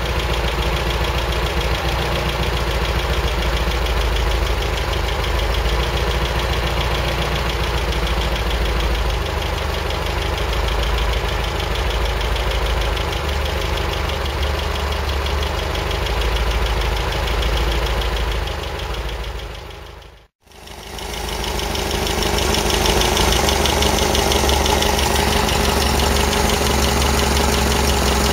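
MGB's B-series four-cylinder engine idling steadily, fully warm, while its twin SU carburettors are being balanced. The sound drops out for a moment about two-thirds of the way through, then the idle carries on.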